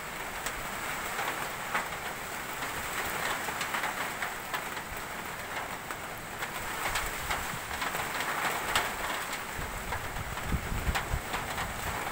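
Typhoon rain falling on a corrugated metal roof: a steady hiss with many scattered sharp drop hits. Low gusts of wind rumble on the microphone from about ten seconds in.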